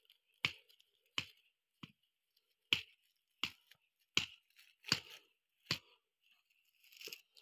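Plastic sheeting crackling in short, sharp clicks, evenly spaced a little more than one a second, as hands work over it.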